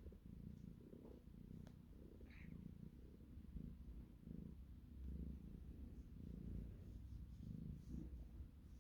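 Domestic cat purring softly in a steady rhythm, one pulse with each breath in and out, about three pulses every two seconds.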